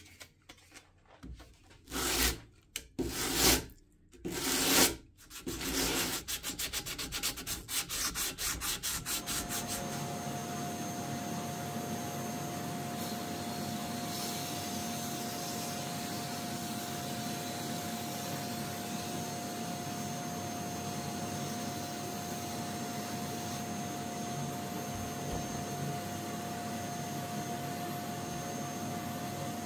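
Hand sanding of a metal casting with an abrasive-covered rod: a few separate scraping strokes, then a quicker run of short strokes. From about ten seconds in, a paint spray gun hisses steadily with a faint steady tone, spraying black paint.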